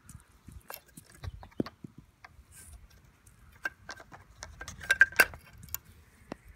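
Golf balls clicking and knocking together in a toddler's hands: a scattered run of small hard taps, loudest as two sharp clacks about five seconds in.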